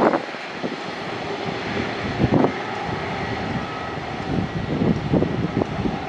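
Airbus A330 jet engines running at taxi power as the airliner rolls past: a steady roar with a faint high whine, and a few low bumps of wind on the microphone.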